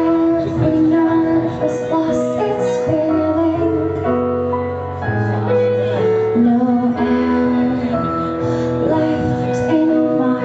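Woman singing a slow pop ballad live, backed by a band, her melody moving in long held notes over sustained accompaniment.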